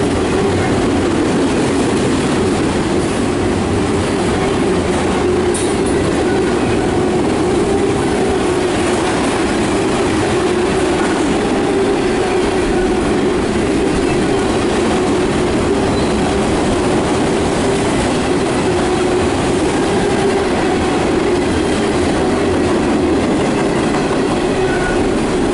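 Autorack freight cars rolling past close by, a steady, loud rumble of wheels on rails, while a double-stack intermodal train passes on the far track at the same time.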